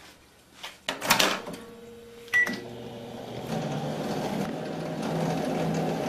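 Old microwave oven being started: a click and clunk about a second in, a single short keypad beep, then the oven starts running with a steady low hum that grows a little louder and holds.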